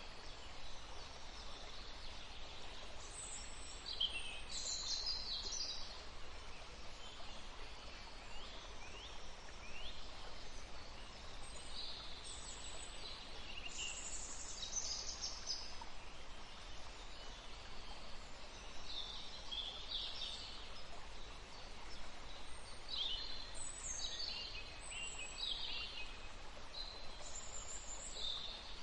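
Songbirds chirping and singing in short, high phrases that come in clusters with pauses between, over a steady background hiss.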